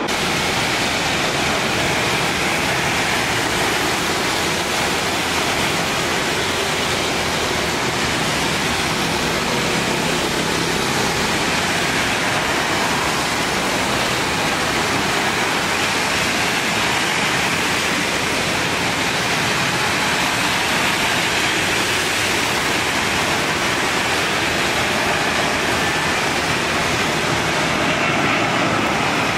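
Heavy rain falling, a steady, even hiss that holds the same level throughout.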